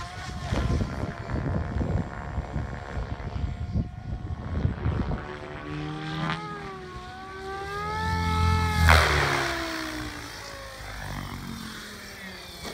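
Radio-controlled model helicopter flying, its rotor and motor whine rising and falling in pitch as it descends, loudest about nine seconds in as it comes close, then dying away as it settles on the ground.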